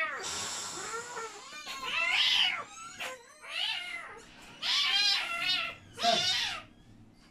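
A cat held wrapped in a towel for a vaccination, meowing repeatedly: about five drawn-out meows, each rising then falling in pitch, with short pauses between them.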